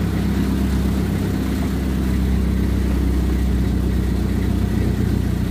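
Outrigger fishing boat's engine running steadily at a low, even idle.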